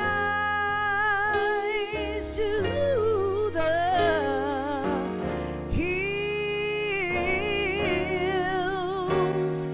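Gospel music: singing with a wide vibrato over sustained chords.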